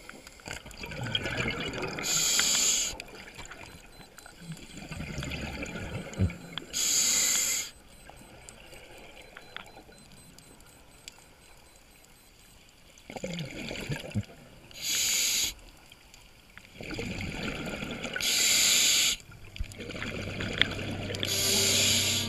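Scuba regulator breathing underwater: five loud bursts of exhaled bubbles, each about a second long, with softer bubbling and inhalation hiss between them and a longer pause in the middle.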